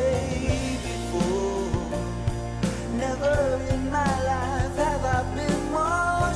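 A pop-rock song with a sung melody over a steady bass and drum beat.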